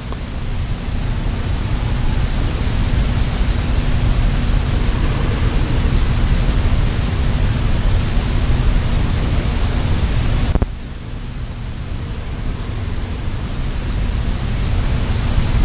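Steady rushing noise of moving air, strongest in the low end, with a faint even hum under it. About ten and a half seconds in it drops suddenly, then slowly builds back up.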